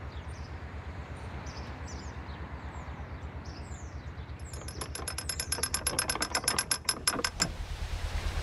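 A rapid run of even metallic clicks, about eight a second, for some three seconds from about four seconds in; it stops abruptly. The clicking is the ratchet and pawl of canal lock paddle gear being wound with a windlass. Underneath is a low steady throb, with birds chirping in the first half.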